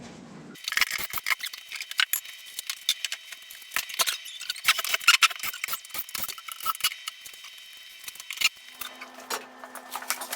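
Dense, irregular high-pitched clicking and light rattling from things being handled while unpacking a crate. A steady low hum comes in near the end.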